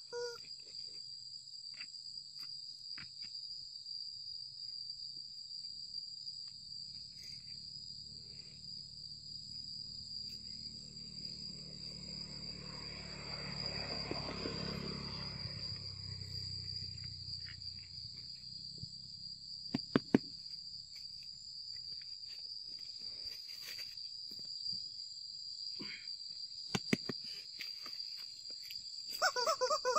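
Insects droning in a steady high-pitched chorus, with a low rumble that swells and fades in the middle and a few sharp clicks a little after it. Near the end come a few squeaks from a rubber chicken squeeze toy.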